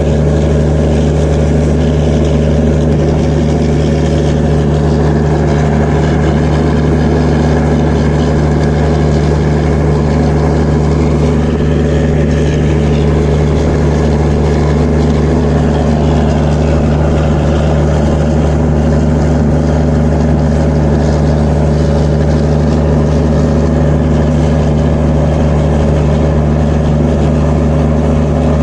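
Diesel generator set in an Indian Railways train's power car (generator car), running steadily at constant speed with an unchanging engine hum.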